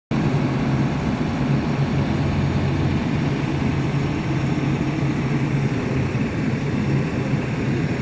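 JCB backhoe loader's diesel engine running steadily, a constant low hum.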